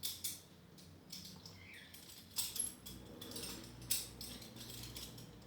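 Balisong (butterfly knife) being flipped. The handles and blade make a few sharp metallic clicks, about a second and a half apart, with quieter ticks and rattles between.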